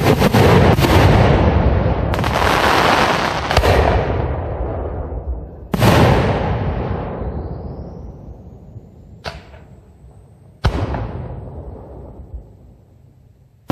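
Aerial firework shells bursting: about seven sharp booms, each rolling off in a long echoing rumble, coming thick in the first six seconds and sparser later. A thin whistle rises and holds in the middle, and the rumble dies away near the end.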